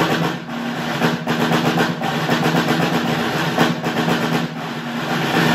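Concert snare drum played with sticks in a dense, sustained roll, broken by several sharper accented strokes.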